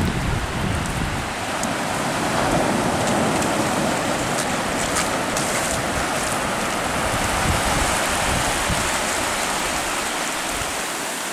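Surf washing up a sandy beach: a steady hiss of breaking waves and foam fizzing over the sand.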